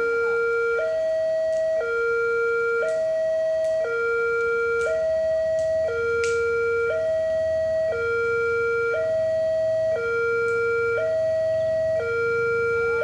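Railway level-crossing warning siren sounding an electronic two-tone alarm, a low and a higher tone alternating about once a second, the signal that a train is approaching and the road is closed. A low rumble builds up under it from about halfway through.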